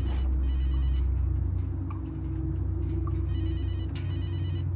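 A phone ringing with a trilling electronic ring, two short rings then a pause of a couple of seconds, over a low steady drone.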